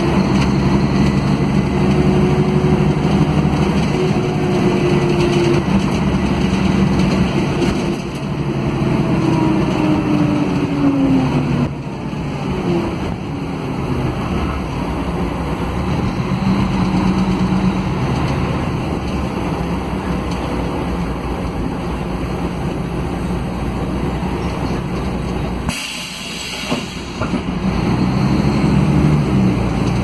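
Mercedes-Benz OM457LA diesel engine of an O500 UA articulated bus with a ZF Ecomat automatic gearbox, heard from inside the passenger cabin: a steady engine drone whose pitch falls about ten seconds in as the bus slows. A brief hiss comes about 26 seconds in, and near the end the engine note rises again as the bus pulls away.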